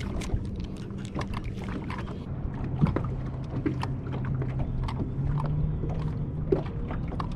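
Bass boat on the water: irregular small knocks and slaps, typical of water lapping against the hull, over a steady low hum that drops in pitch about three seconds in.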